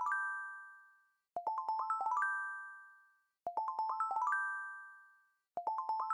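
Electronic chime-like music: a short run of quick bell-like notes climbing in pitch, played three times about two seconds apart, each run ringing out and fading away before the next.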